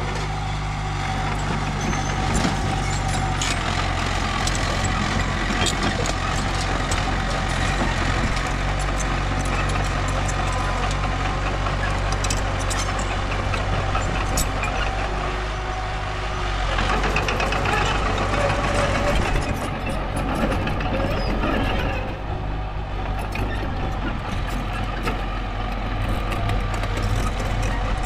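Mini bulldozer engine running steadily under load, with scattered clanks and scraping over the engine hum.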